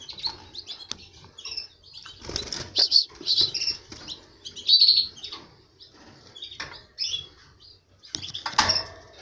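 Caged canaries giving many short high chirps and fluttering their wings, disturbed by a hand reaching into the breeding cage, with a few sharp knocks and rustles against the wire cage.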